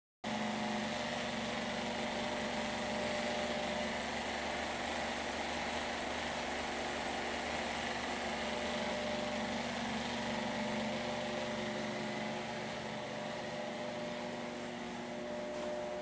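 Small 12-volt electric pump running steadily as it circulates vinegar from a bucket through a tankless water heater to descale it. The hum has a few steady tones in it, starts abruptly, and eases slightly near the end.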